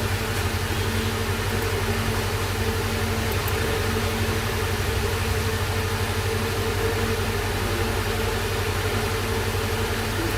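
Steady low machine hum with even hiss and faint constant tones above it, unchanging throughout.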